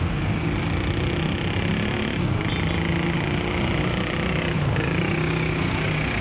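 Steady rumble of road traffic, with vehicle engines running.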